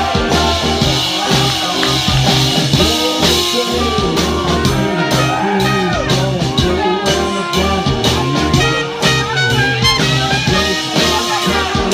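Loud live band music with a steady beat, heard from within the crowd in front of the stage.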